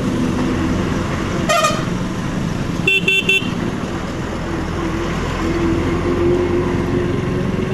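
Vehicle horns honking in road traffic: one short honk about a second and a half in, then three quick toots about three seconds in, over steady engine and traffic noise.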